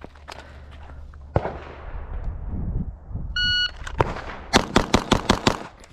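Shot timer's start beep, then a Bill drill: a fast string of pistol shots, about five a second, fired within about two seconds of the beep.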